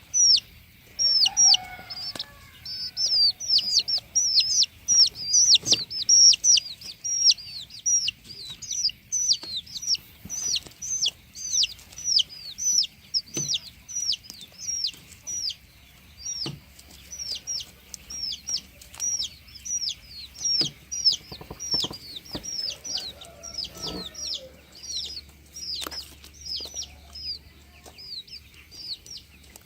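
Chicks peeping steadily in a rapid string of high, falling peeps, a few every second, with a few low hen clucks mixed in.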